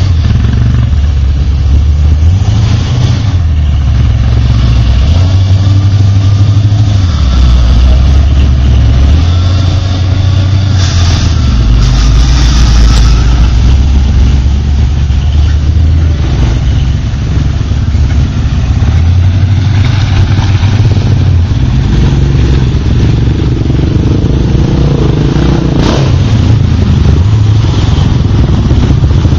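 ATV engines running and revving up and down as the quads work through mud, with the low engine note rising and falling every second or two.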